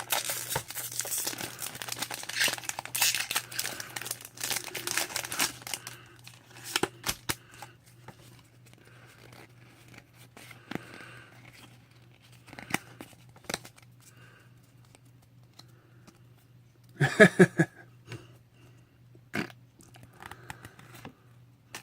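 Foil booster pack wrapper being torn open and crinkled for several seconds, followed by faint scattered clicks of cards being handled. About seventeen seconds in comes a brief vocal sound.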